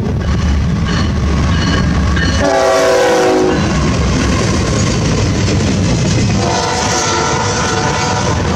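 Florida East Coast Railway diesel locomotive passing close by at the head of a double-stack container freight, with loud engine rumble and wheel noise on the rails. Its air horn sounds a chord for about a second, about two and a half seconds in, and again, higher, from about six and a half seconds for over a second.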